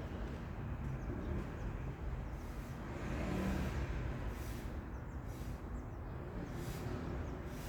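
A steady low rumble with a vehicle going past, loudest about three to four seconds in.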